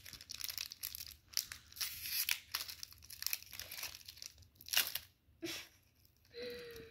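Foil wrapper of a Pokémon card booster pack being torn open and crinkled by hand: a quick run of sharp tearing and crackling, loudest a little before five seconds in, then quieter.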